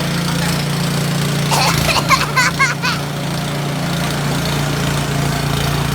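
A small engine running at a steady pitch, with a high-pitched voice giving a few short calls or squeals around the middle.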